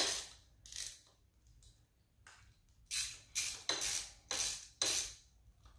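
Socket ratchet clicking in short bursts while backing out the 8 mm bolts of a Kayo K6-R 250's engine side cover: one sharp click at the start, then about six quick runs of ratcheting in the second half.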